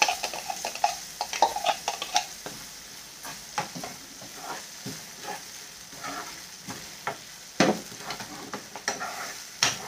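A spoon stirring and scraping onions, green peas and freshly added ground masala paste around a frying pan, over a steady sizzle of hot oil. The strokes come irregularly, with two sharper scrapes in the second half.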